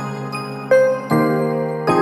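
Background music: gentle tinkling melody with notes struck about every half second over sustained chords.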